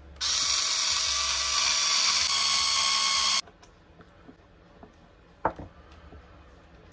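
Cordless electric screwdriver running for about three seconds as it drives a screw into the RC truck's front diff housing, a steady high whir that cuts off suddenly. A single sharp click follows a couple of seconds later.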